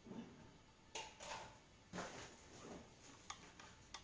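Faint, scattered knocks and clicks of kitchen things being handled and set down, about one a second, over quiet room tone.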